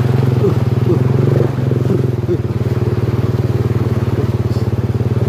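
Small motorcycle engine running steadily at an even pace, carrying the bike through shallow floodwater over a dirt road.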